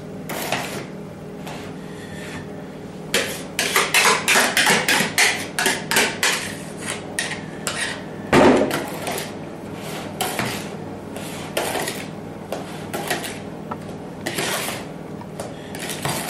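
A kitchen utensil knocking and scraping against a mixing bowl while beaten egg whites are folded into a yolk and sugar mixture, with a quick run of clicks about three seconds in and a louder thump about halfway through.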